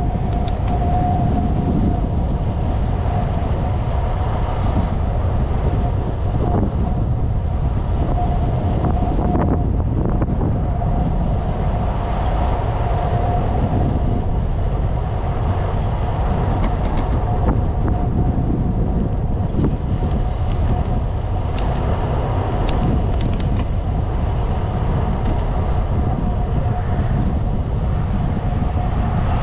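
Wind noise on the microphone over a steady low rumble of road noise from a bike in motion, with a thin whine that comes and goes and a few short clicks in the second half.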